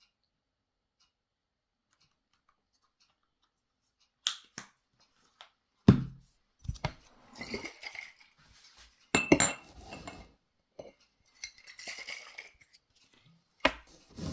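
Dishes and utensils being handled: starting about four seconds in, a series of knocks and clinks, the loudest a dull thump about six seconds in, with rustling between them.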